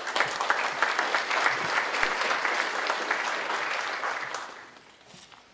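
Audience applause, a dense patter of many hands clapping that dies away about four and a half seconds in.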